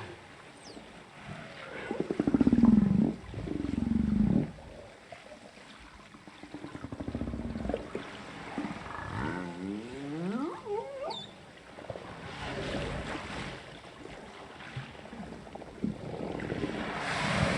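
Humpback whale social calls recorded underwater through a hydrophone. The loudest is a low, pulsed grunting moan about two to four seconds in. It is followed by a whoop that rises in pitch about nine to eleven seconds in, a short high chirp, and rougher calls near the end.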